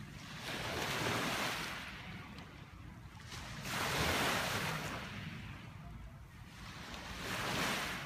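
Small lake waves washing onto a pebble shore, three swells rising and falling about three seconds apart.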